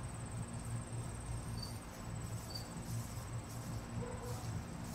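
Outdoor insects trilling: a continuous high, rapidly pulsing trill that drops slightly in pitch about two seconds in, with short higher chirps roughly once a second, over a steady low hum.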